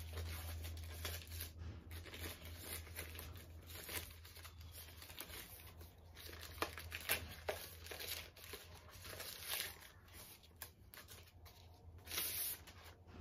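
Packaging being handled, crinkling and tearing in irregular faint crackles, with one louder rip about twelve seconds in.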